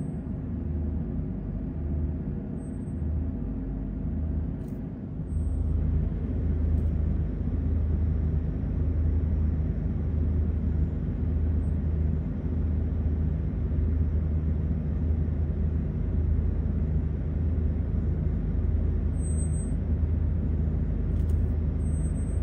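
Steady low engine rumble heard from inside a truck cab, growing louder about five seconds in and then holding steady.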